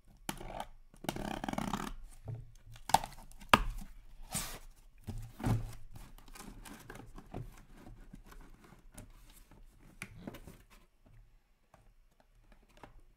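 Packing tape on a cardboard shipping case being cut and torn open, then the cardboard flaps and the shrink-wrapped card boxes inside handled, with scraping and rustling. Two sharp knocks stand out about three seconds in, and the handling fades off in the second half.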